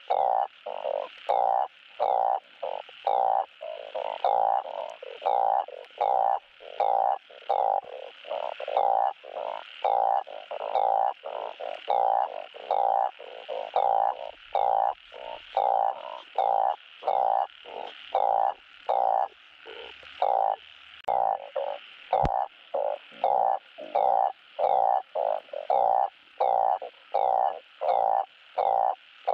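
Truncate-snouted burrowing frog (Glyphoglossus molossus) giving its mating call: short, nasal calls repeated steadily, about one to two a second.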